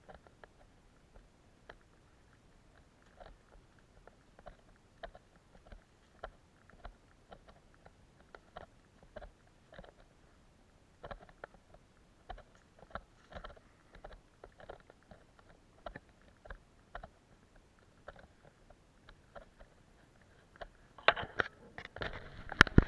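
Footsteps on wooden boardwalk planks strewn with dry leaves, a short crunchy knock about every half second at a steady walking pace. Near the end comes a louder spell of crunching and rustling.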